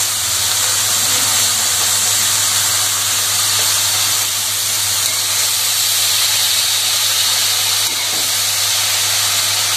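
Chopped grass pea greens (koloi shak) with onion and green chillies frying in oil in an aluminium karahi, giving a steady, even sizzling hiss. A spatula starts stirring the greens near the end.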